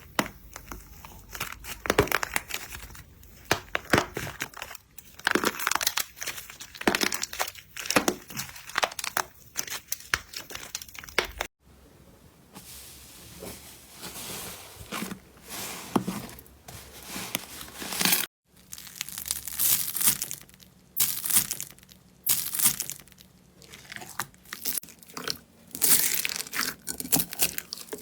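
Crunchy slime being squeezed, poked and stretched by hand, giving dense crackling and crinkling pops. It comes in three stretches, broken by abrupt cuts about 11 and 18 seconds in.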